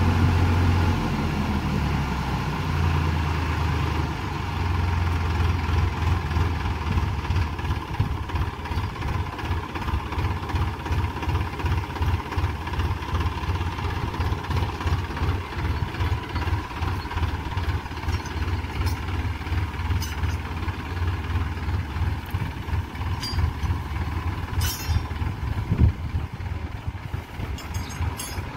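Tractor diesel engine running, a steady low hum at first that turns choppy and uneven after about eight seconds and slowly grows fainter. A single sharp knock near the end.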